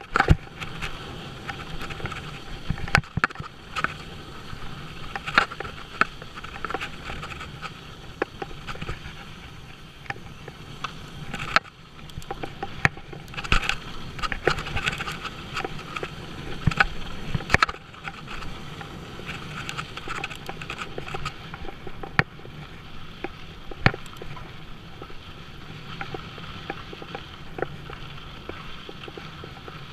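Mountain bike rolling fast down a dry dirt and rocky trail: a steady rumble and hiss of tyres on dirt and gravel, broken by frequent irregular sharp clacks and rattles as the bike hits bumps and rocks.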